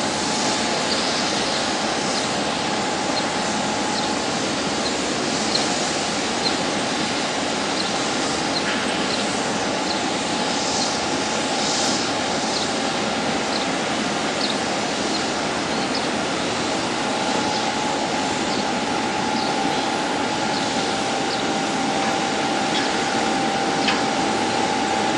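Steady industrial din of a lake freighter unloading cargo at a dock, with a constant whine that fades out and returns about two-thirds of the way through, and short high squeaks now and then.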